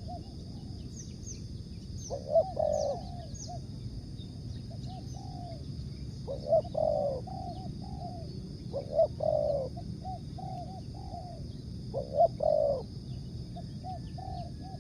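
Spotted dove (tekukur) cooing: a phrase of several low coos repeated about every three seconds, four times. Faint high chirps of small birds sound in the first few seconds.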